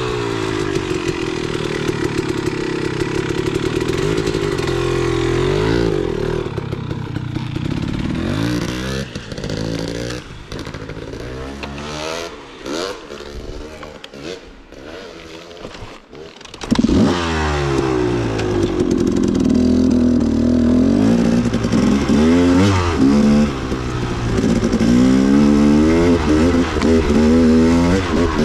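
Off-road vehicle engine being ridden, its revs rising and falling. It eases off and drops away in the middle, then is loud again and revving hard for the last third.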